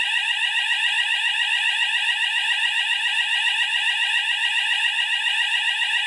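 Fire alarm sounders of a Hochiki ESP addressable system sounding a loud, continuous, rapidly pulsing alarm tone. A detector has just been set off during a system test, putting the panel into alarm.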